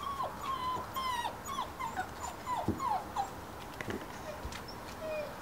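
Labrador puppies whining and yipping in play: a quick string of short high whines, each dropping in pitch at its end, about three a second, thinning out after about three seconds.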